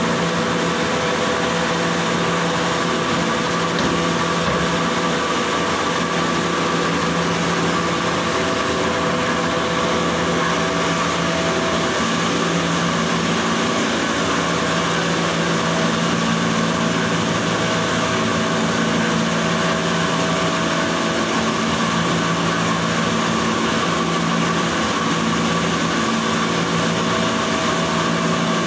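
Small atta chakki flour mill running steadily while grinding grain: the grinder is belt-driven by an electric motor, making a constant machine hum with several steady tones over it.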